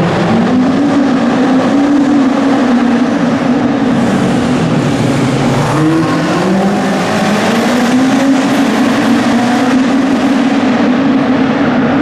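Small hatchback race car's engine revving hard through a cone slalom. It climbs in pitch, drops back about halfway as the driver lifts or shifts, then climbs again and holds high revs.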